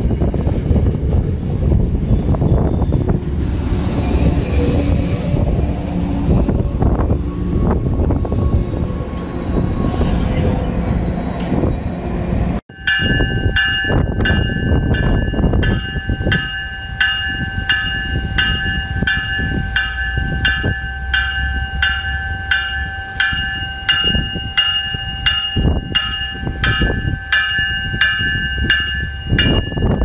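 MBTA commuter train rolling along the platform, with wind buffeting the microphone and brief wheel squeal. After a sudden cut about 13 seconds in, an arriving push-pull train's bell rings repeatedly, just under twice a second, over a steady squeal from its wheels as it slows into the station.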